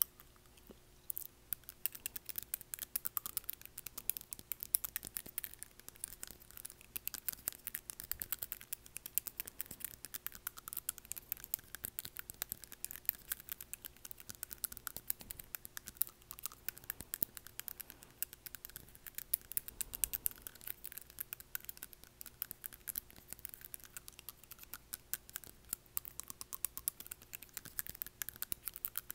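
Long acrylic nails clicking and scraping rapidly against teeth in a close, crisp stream of dense ticks that starts about a second in.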